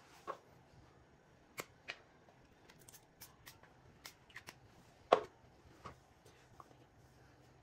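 Scattered light clicks and taps of small plastic spray bottles being handled and pumped onto skin, with one louder knock about five seconds in.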